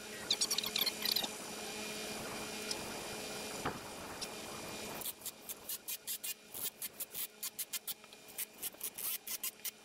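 A steady mechanical hum for about five seconds, with a short cluster of sharp clicks about half a second in. The hum then stops and a quick, irregular run of sharp metallic clicks follows, about four a second, as a wheel-towing dolly is assembled with a hand tool.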